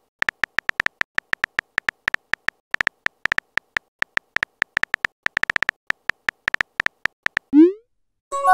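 Texting-app keyboard tap sounds: a rapid run of short, same-pitched ticks, about five a second with a quicker flurry midway, as a message is typed out letter by letter. Near the end comes a quick rising swoosh as the message is sent, and a chime just starts.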